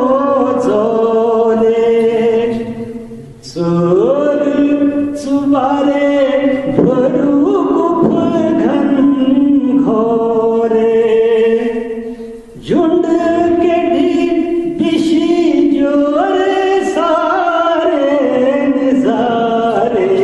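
A man singing a Bhaderwahi poem solo in long, drawn-out melodic phrases, breaking off briefly twice.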